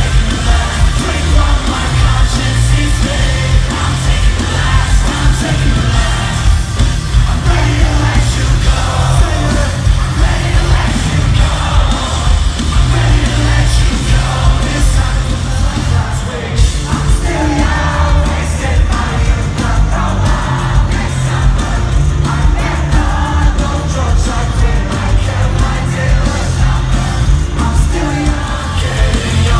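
Live rock concert: a band playing loud with heavy bass and a singer, the crowd yelling along.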